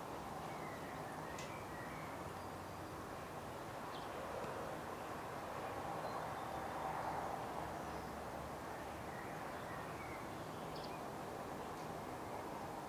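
Steady outdoor background hiss that swells slightly about halfway through, with a few faint short bird chirps near the start and near the end.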